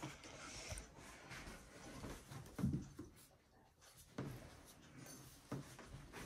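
Faint rustling and soft bumps as a golden retriever puppy noses and sniffs at a cloth Santa figure on the carpet, with a louder soft thump about two and a half seconds in.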